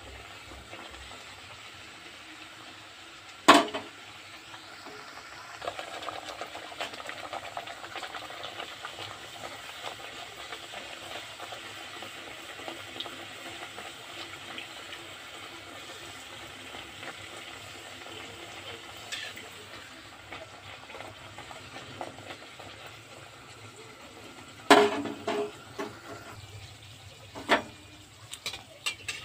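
Luchi deep-frying in hot oil in a karahi: a steady sizzle as a perforated metal spatula presses the puffing bread down into the oil. Sharp metallic knocks of the spatula against the pan come about three and a half seconds in and again twice near the end.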